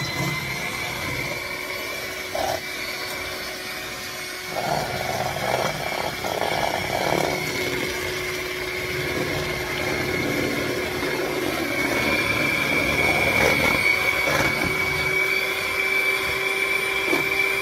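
Hamilton Beach electric hand mixer running steadily with a high whine, its beaters whipping heavy cream in a stainless steel bowl until it holds peaks.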